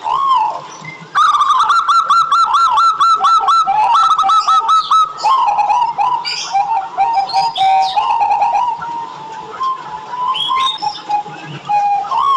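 Zebra dove (perkutut) cooing. About a second in comes a fast run of evenly repeated coo notes, followed by slower rolling coos, with single arched coos at the beginning and near the end.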